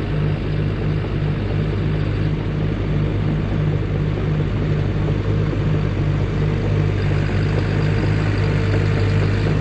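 CAT D5 crawler dozer's diesel engine running steadily under work, with an even low pulse. A faint higher whine comes in near the end.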